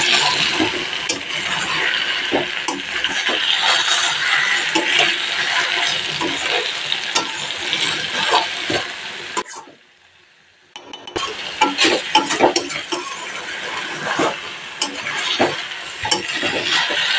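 Spiced chicken and fried potato pieces sizzling in oil in a metal kadai while a spatula stirs and scrapes the pan, with small clinks of metal on metal. This is the kosha stage: the masala is cooked down until the oil separates at the sides. The sound cuts out for about a second midway, then carries on.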